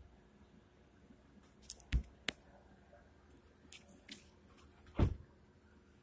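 Handling noise from a hand-held phone: a few soft thumps and light clicks, the loudest about two seconds in and again about five seconds in.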